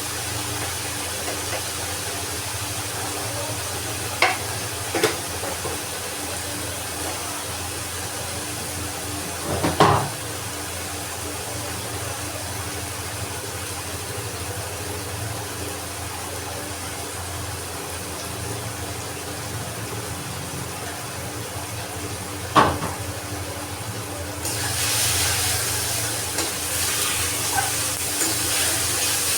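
Cooking in a pan: a steady frying sizzle over a low hum, with a few sharp knocks of a utensil against the pan. Near the end a louder, brighter hiss sets in.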